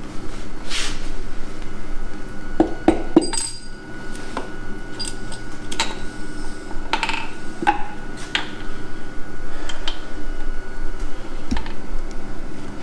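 Hand tools clinking and tapping on a stripped engine block's connecting-rod caps and bolts: irregular sharp metal clinks, a small cluster of them about three seconds in, over a steady hum.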